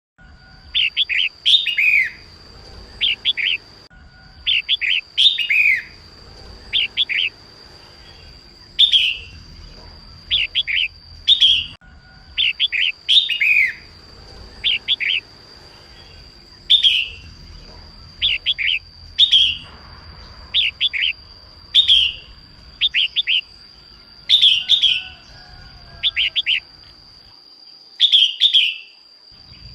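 Female red-whiskered bulbul singing: short phrases of two to five quick chirping notes, repeated every second or two. A steady high tone runs underneath most of the time.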